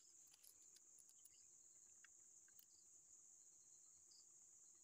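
Faint, steady high-pitched chirring of insects, with a few faint clicks in the first three seconds.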